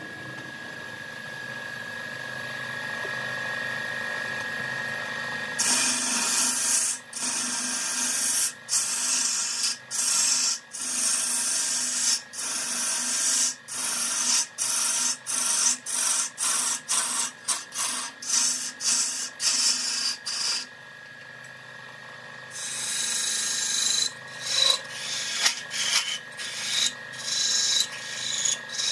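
Wood lathe running with a steady whine. About six seconds in, a turning tool starts cutting into the spinning wood blank: a loud hissing scrape in many short strokes broken by brief gaps. The cutting stops for about two seconds after about twenty seconds, then starts again.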